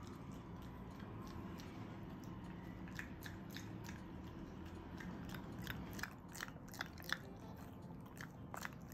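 Shiba Inu smacking its lips and working its jaw and tongue, a scatter of small mouth clicks that come more often from about three seconds in, as it struggles to free sticky red-bean rice (sekihan) stuck in its mouth.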